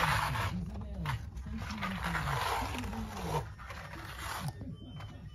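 Float rubbed over cement render on a wall, a scraping sound in a few long strokes that ease off after about three and a half seconds; the render is being rubbed down to a flat finish.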